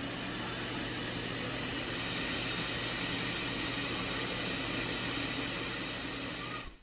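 Tap water running from a kitchen faucet into a stainless steel sink filling with soapy dishwater, a steady rush of water that fades out just before the end.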